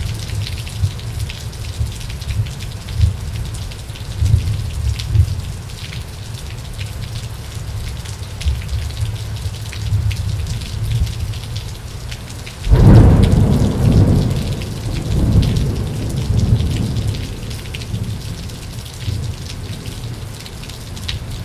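Thunderstorm: steady rain with low rolling thunder. About two-thirds of the way through, a sudden loud thunderclap breaks and rumbles away over several seconds.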